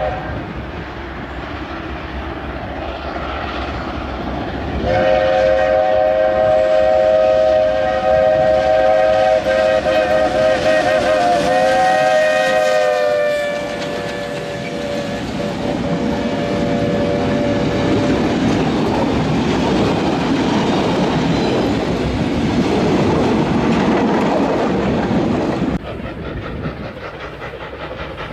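Steam locomotive's chime whistle sounding one long blast of several notes together, dropping in pitch as the engine passes close by, followed by the train of freight wagons rumbling and clattering past on the rails. The sound changes abruptly near the end.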